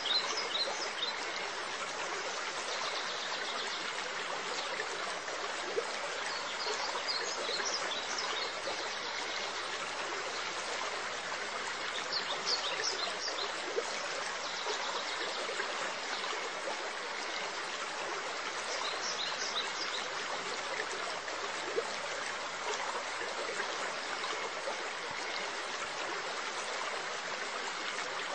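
Steady trickle of running water in an aquarium, with short runs of high chirps four times.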